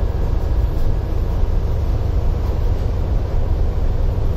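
Steady low rumble and hum of a ship's engine-room machinery, heard inside the engine control room while the MAN ME two-stroke main engine is running.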